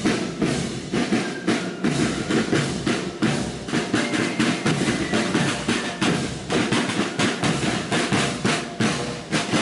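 Marching drum and fife band: a rank of side drums beating a steady march rhythm with rolls, while flutes play a faint thin tune at times.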